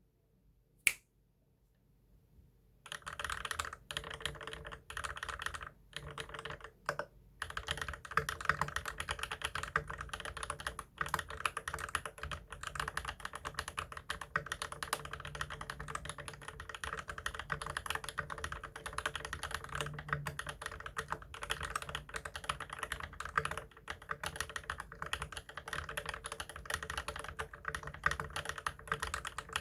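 Typing on an XO V2 mechanical keyboard fitted with Drop Holy Panda tactile switches, lubed with 205g0 and sprung with 60 g TX springs, under GMK WOB keycaps: a rapid, continuous stream of keystrokes. A single keystroke comes about a second in, typing starts about three seconds in with a few brief pauses, then runs on without a break.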